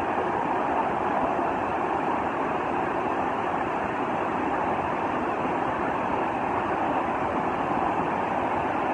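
Piracicaba River in flood, its fast muddy rapids rushing in a steady, unbroken roar of water; the river is swollen by heavy rain upstream.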